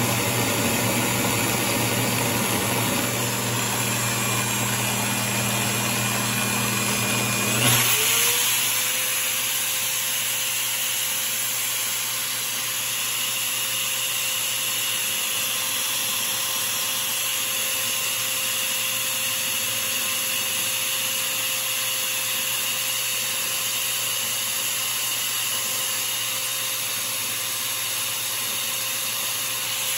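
Electric drill spinning a screw held in its chuck, with a hand file and then sandpaper rubbing against the turning screw. About eight seconds in the motor's pitch rises sharply and then runs steady at the higher speed.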